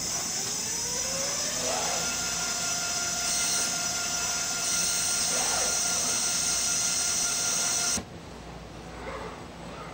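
Factory machinery in a robotic assembly cell: a motor whine that rises in pitch over the first two seconds and then holds steady, over a steady hiss. The level drops suddenly about eight seconds in.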